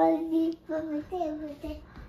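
A young boy singing a short sing-song phrase: one long held note, then three or four shorter notes.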